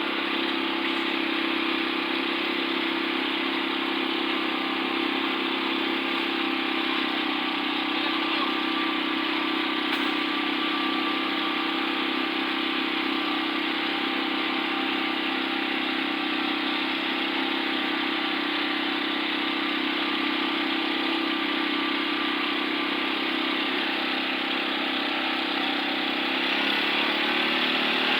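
Engine of a portable concrete mixer running steadily, its pitch rising slightly and getting a little louder near the end.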